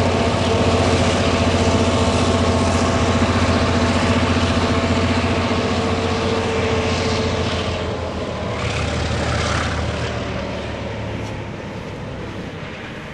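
Diesel engines of two Tasrail locomotives, a ZR and a DQ class, running light engine: a steady low drone with several tones above it, fading as the locomotives move away. A few brief hisses come about seven and nine seconds in.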